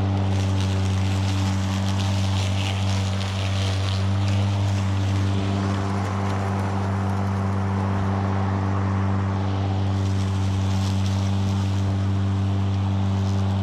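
Stiga Twinclip 950e V 48-volt battery lawnmower running under load, its motor giving a steady hum while the blades cut grass with a rushing hiss that swells at the start and again around ten seconds in. It is mowing in side-discharge mode while being taken up a steep slope.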